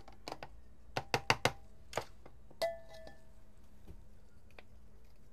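A handful of sharp knocks and clinks as a plastic food processor bowl is tipped and tapped against a glass mixing bowl to empty out the lentil paste. About two and a half seconds in, one clink of glass rings briefly.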